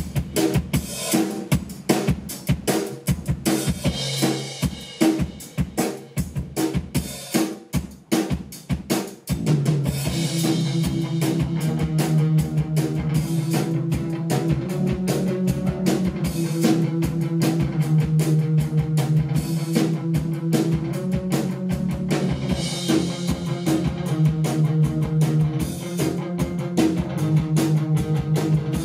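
Live rock band playing an instrumental intro: drum kit and electric guitar in choppy, stop-start hits, then about nine seconds in the band settles into sustained guitar chords over a steady drum beat.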